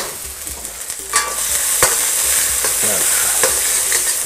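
Garlic, ginger and peppers sizzling in hot oil in a wok, stirred and tossed, with a utensil scraping and clicking against the wok. The sizzle gets louder about a second in.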